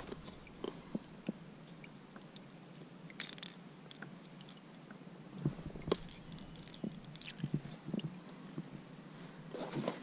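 Faint, scattered clicks and taps, the loudest about six seconds in, from fishing gear being handled in a kayak: a plastic lip-grip tool, the landing net and a topwater lure being freed from a caught redfish.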